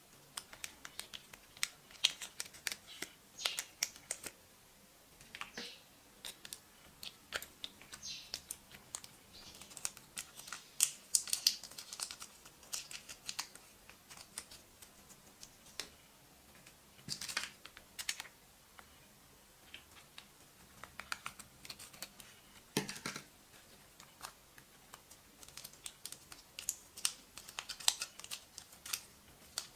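Small plastic shampoo sachets crinkling and crackling as they are handled, squeezed and torn open: a steady scatter of small sharp clicks with a few louder bunches.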